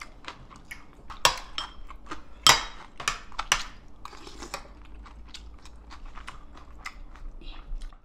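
A person eating raw oysters: a metal spoon clicks and clinks against dishes, the loudest knocks between about one and four seconds in, with chewing sounds between them.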